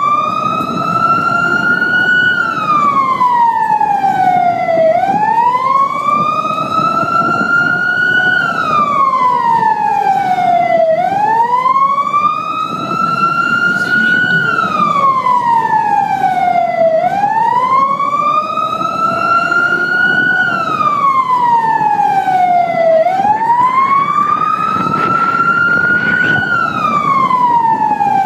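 Vehicle siren in a slow wail, its pitch rising for about three seconds and falling for about two and a half, repeating about five times, over a low rumble of the moving vehicle.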